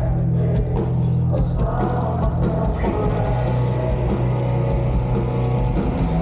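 Melodic death metal band playing live at full volume: distorted electric guitars, bass and drums, with the singer's vocals over strong held low notes.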